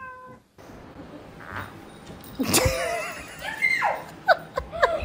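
The tail of a cat's falling meow right at the start. From about halfway in, a person laughs and squeals in short, rising and falling bursts.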